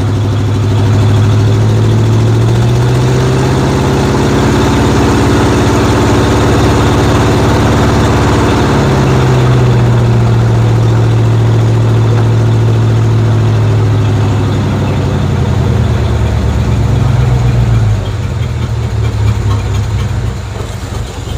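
1950 Ford F1's flathead V8 (Ford 8BA) held above idle under light throttle while still cold. Its revs sag and pick up again partway through, then fall back to a slow idle near the end.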